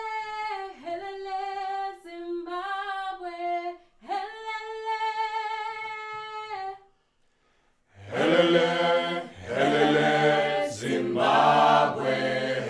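A single high voice sings a few long held notes unaccompanied, then after a brief pause a group of voices comes in together, singing in full a cappella harmony in Southern African choral style.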